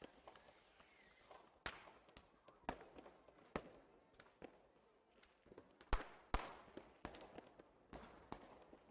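Fireworks going off: a string of sharp bangs at irregular intervals, each trailing off in echo, with the loudest bang about six seconds in.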